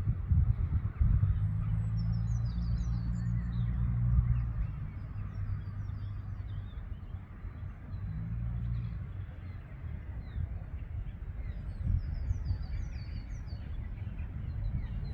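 Small birds chirping in quick short notes, busiest in the first few seconds and again near the end, over a loud low rumble like wind on the microphone.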